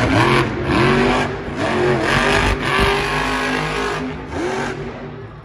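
Monster truck's supercharged V8 engine revving hard, its pitch rising and falling several times as the truck is thrown about on the dirt. There is a short low thump about three seconds in.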